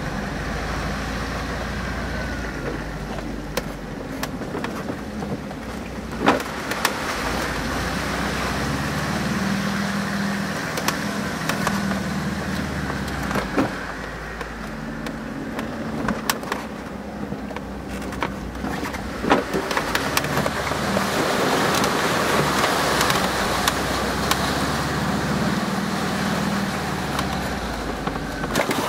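An off-road vehicle's engine runs under changing load, its pitch rising and falling several times, while sharp knocks and rattles from the body break in now and then as it is driven over rough ground.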